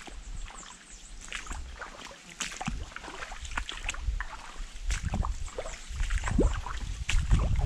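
A person moving on foot through brush: irregular crackling and rustling of leaves and twigs, with a low rumble on the microphone that grows louder toward the end.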